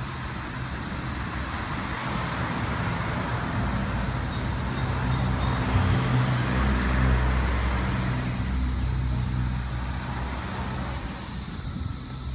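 Road traffic: cars driving past, their tyre and engine noise swelling to a peak about six seconds in and then fading.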